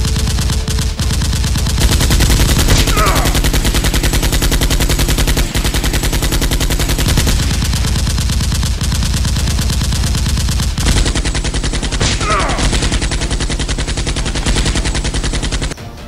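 Rapid, unbroken machine-gun fire sound effect, dozens of shots running together, laid over a toy-blaster firefight. It cuts off abruptly near the end.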